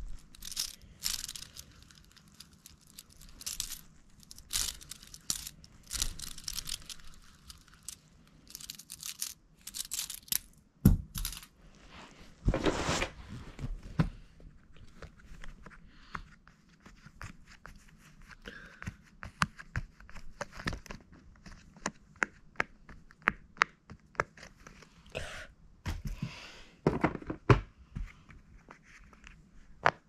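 Rustling and handling noises, then from about halfway on a long irregular run of short pops as fingers press the silicone bubbles of pop-it fidget toys.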